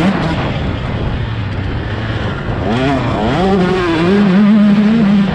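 Dirt bike engine revving up and down under throttle while riding a hill trail: the revs sag in the first couple of seconds, climb sharply about three seconds in, and hold high near the end.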